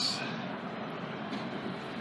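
Steady outdoor background noise, an even hiss and rumble with no distinct event.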